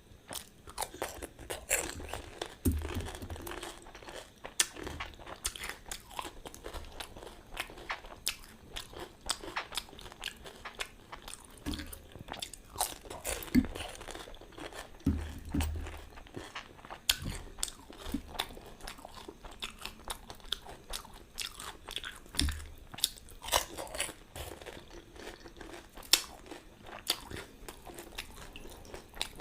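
Close-up eating sounds of pani puri: crisp hollow puris crunching and cracking as they are bitten and chewed, with wet mouth sounds and many sharp crackles throughout.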